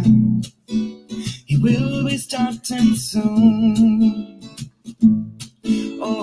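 Intro theme music led by acoustic guitar, with a wavering melody line over it, playing in short phrases broken by brief pauses.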